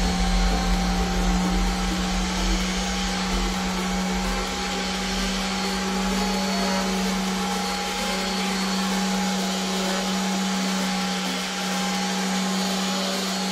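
Random orbital sander running steadily as it is worked over a cured epoxy resin clock face: a continuous motor hum with one constant low tone and a rushing noise of the pad on the resin.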